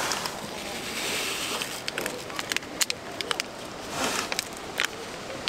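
Primus gas burner hissing steadily under a pot of water. Over it come a run of sharp clicks and crinkles from a stick packet of instant coffee being emptied into the pot.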